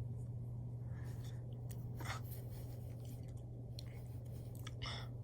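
Quiet room tone with a steady low electrical hum, and a few faint scattered clicks and soft rustles.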